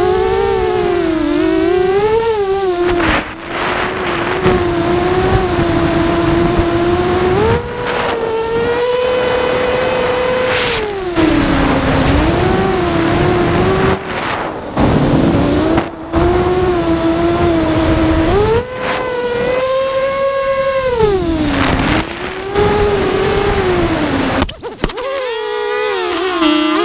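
Electric motors and propellers of an FPV drone whining from on board, the pitch swooping up and down again and again with the throttle and cutting back briefly a few times. Near the end it crashes with a short break in the sound, and the whine turns rougher and buzzier as a propeller on the folded-back arm strikes and shreds the battery straps.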